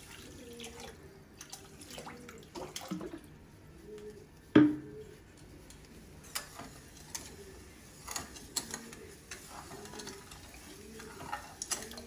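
Water poured onto dry sugar in a nonstick pan, then stirred with a silicone spatula to start a sugar syrup, with light taps of the spatula against the pan. One sharp knock a little before halfway is the loudest sound.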